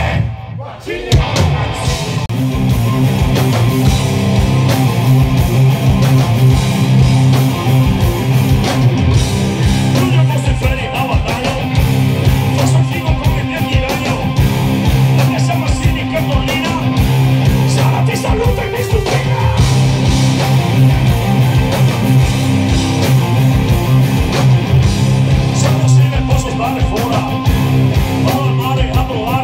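A live rock band playing loud through the stage amplification: electric guitars, bass and drums, with a vocalist on the microphone. The music drops out briefly at the very start, then the full band comes back in about a second in and plays on steadily.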